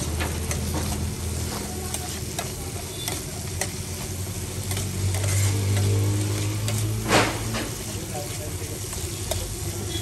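Buff sukuti (dried buffalo meat) sizzling in oil in a steel frying pan while a spatula stirs and scrapes it, with many irregular small scrapes over a steady low hum. A brief louder noise comes about seven seconds in.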